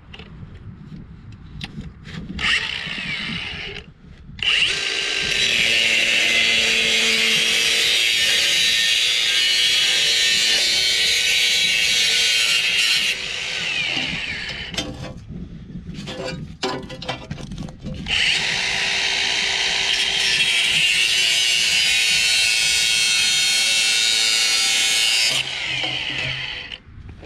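A power tool cutting through a steel exhaust tailpipe: a short burst, then two long runs of about eight seconds each, separated by a few seconds of lighter rattling.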